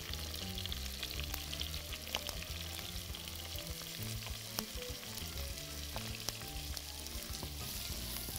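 Peeled shrimp sizzling in hot oil with sliced onion and garlic in a nonstick pot, stirred with a wooden spoon that clicks and scrapes now and then against the pot and a glass bowl.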